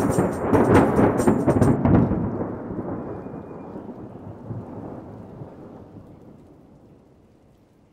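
Rolling thunder with rain, loudest over the first two seconds and then dying away slowly. A fast high rattle stops about two seconds in.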